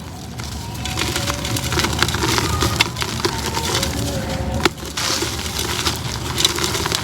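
Pieces of a concrete pot being crumbled and crushed, a dense run of crunching and crackling. There is a sharp crack and a brief lull about two-thirds through.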